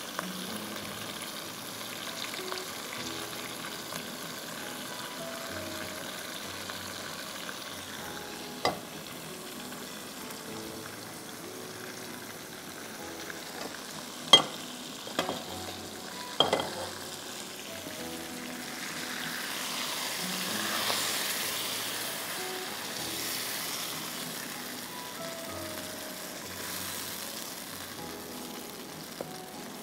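Beef undercut and its freshly poured yogurt marinade sizzling in a hot pan, a steady frying hiss that swells louder about twenty seconds in. A few sharp clicks, most around the middle.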